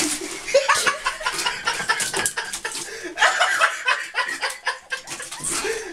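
Laughter: repeated chuckling and snickering in short bursts.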